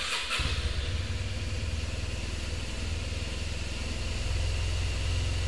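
Car engine idling steadily, heard from inside a 2010 Chevrolet Malibu.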